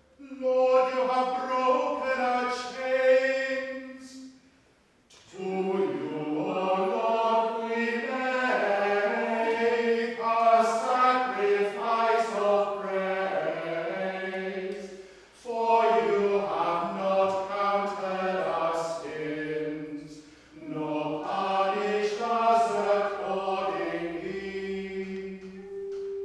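Unaccompanied voices singing a slow chant in long held phrases, with brief pauses about five, fifteen and twenty seconds in.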